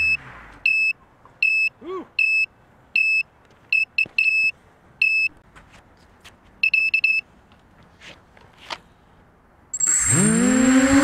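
Naze32 flight controller's low-battery (Vbat) alarm buzzer beeping, a series of short high-pitched beeps with a quick flurry of them about two-thirds through, a sign that the flight battery is drained. Near the end, the NightHawk 250 quadcopter's brushless motors spin up with a fast-rising whine and hold steady.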